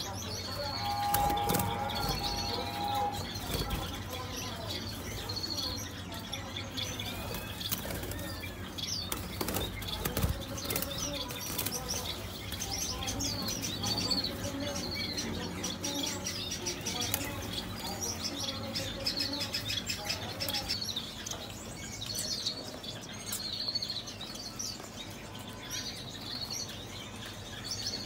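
Small cage birds in an aviary chirping continually in short high calls, with bursts of wing flapping as they fly about.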